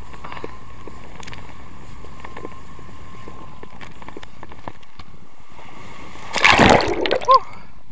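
Steady rush of water and spray while water skiing behind a boat, then, about six and a half seconds in, a loud, brief splash as the skier goes down into the lake and water washes over the camera.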